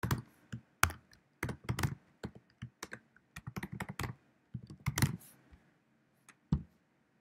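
Typing on a computer keyboard: quick, irregular runs of sharp keystrokes that stop about five seconds in, followed by two separate clicks near the end.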